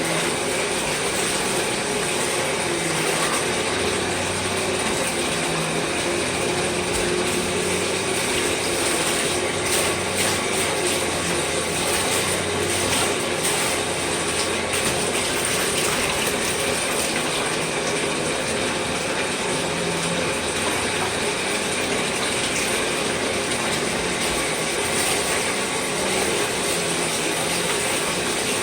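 Tap water running steadily as the Shark NV22 vacuum's filter is rinsed clean by hand in a tub.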